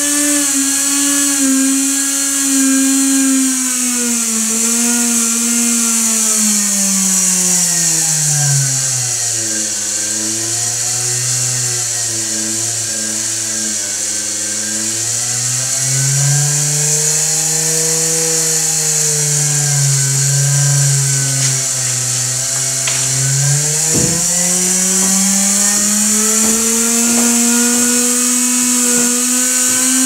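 Small reed-switch-triggered mini window motor, a magnet-rotor pulse motor, spinning fast with a high whine. Its pitch slides down over the first ten seconds, stays low, then climbs back up about three quarters of the way through, as the reed switch is shifted in and out of the narrow spot where it times the motor best. A single sharp click about 24 seconds in.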